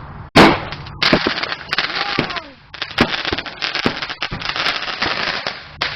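Multi-shot firework barrage going off: one loud bang about a third of a second in, then dense crackling with repeated sharp bangs, easing briefly around the middle before crackling and bangs resume.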